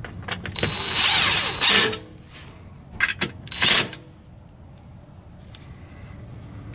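Cordless impact driver running a bolt on the underside of a car in short bursts: one burst of over a second, then two brief bursts.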